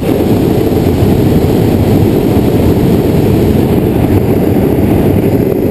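Hot air balloon's twin propane burner firing in one long blast that starts abruptly, heating the air in the envelope during the final inflation before takeoff.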